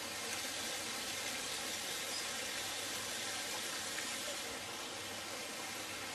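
Steady rush of water from a garden pond's artificial rock waterfall, splashing into the pond.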